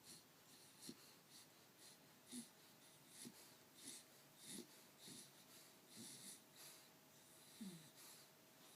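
Faint, wheezy breathing in quick short breaths, about two a second, each with a small squeaky pitch that often falls, of the kind heard in snoring.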